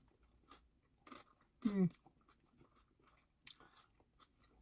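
A person chewing and biting into a vegetable sandwich, with soft crunches and mouth sounds. A short hum from a voice comes just under two seconds in.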